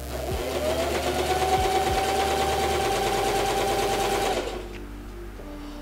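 Electric sewing machine stitching a seam: the motor speeds up over about the first second, runs at a steady fast stitch rate, then slows and stops about four and a half seconds in.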